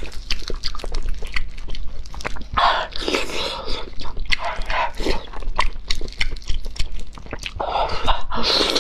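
Close-miked eating sounds: wet lip smacks, sucking and chewing on soft, fatty steamed fish, with many sharp little clicks and louder slurping bursts about two and a half seconds in and again near the end.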